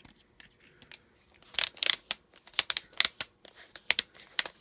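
Irregular sharp clicks and snaps of hard plastic parts being handled and worked by hand, with some rustling.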